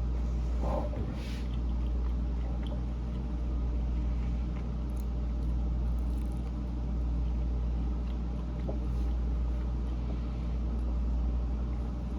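Steady low hum, with a few faint scattered clicks over it.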